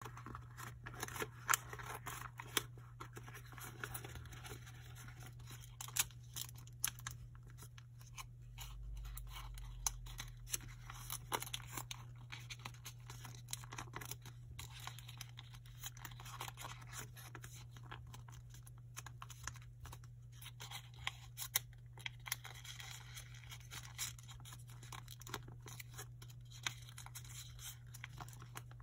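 Origami paper, two sheets layered together, rustling and crinkling as it is folded and creased by hand, with frequent sharp crackles.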